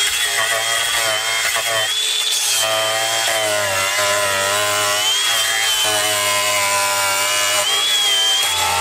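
Angle grinder with a cutting wheel running continuously as it cuts through fiberglass in a boat hull, its high motor whine wavering in pitch as the wheel bites and eases.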